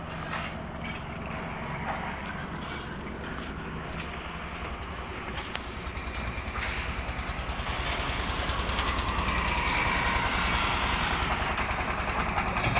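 Engine of construction machinery running steadily. About halfway through it grows louder, with a rapid, even chugging pulse.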